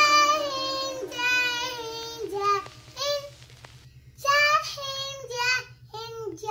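A young boy's high voice calling out "Jai Hind" over and over in a sing-song chant, each short call sliding down in pitch.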